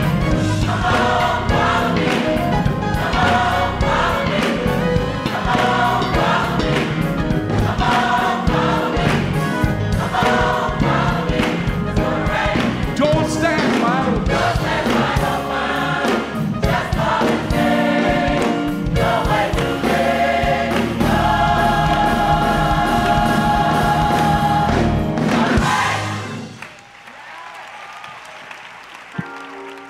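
Gospel choir singing with keyboard accompaniment, a male lead voice singing over the choir. The music stops about four seconds before the end and gives way to a much softer, even noise.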